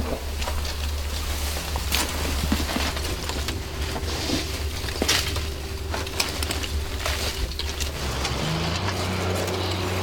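Workers sifting through the burned rubble of a house: scattered crunches, scrapes and clinks of charred debris and metal under tools and hands, over a steady low hum.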